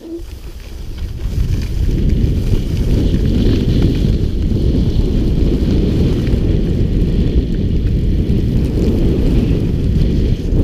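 Wind buffeting a GoPro's microphone as a skier speeds downhill: a loud, steady rumble that builds over the first two seconds. A fainter hiss of skis on snow runs under it.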